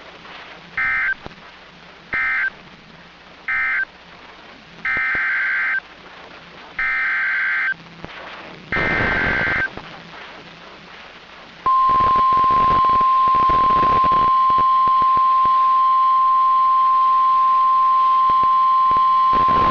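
NOAA Weather Radio Emergency Alert System tones. Three short bursts of data warble end the previous warning, then three longer SAME header bursts announce the next one. About two-thirds of the way in, the steady, single-pitched warning alarm tone starts and holds.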